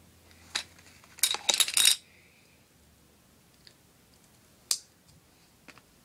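Small hard tools clicking and clattering as they are handled: one sharp click, then a rapid clatter lasting under a second, then two more single clicks near the end.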